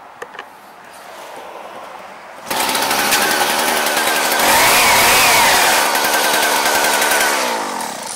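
Husqvarna 122HD45 hedge trimmer's small two-stroke engine starting up abruptly about two and a half seconds in and running loud, its pitch rising and falling briefly around the middle as it is revved. It winds down and stops shortly before the end.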